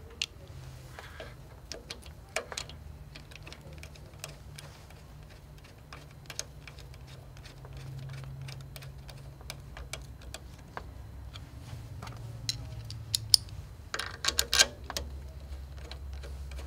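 Scattered light clicks and taps of a screwdriver, screws and a metal handlebar clamp being fitted to a long-arm quilting machine's handlebar bracket, with a short burst of louder clicking and rattling near the end.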